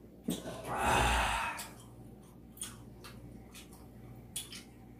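A long, loud breathy exhale close to the microphone, a sigh lasting just over a second, followed by a few light clicks.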